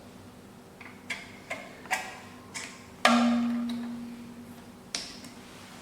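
Irregular sharp clicks and knocks of metal parts being handled and fitted on an SEC E9 key cutting machine; the loudest knock, about three seconds in, rings on with a low tone that fades over a second or so.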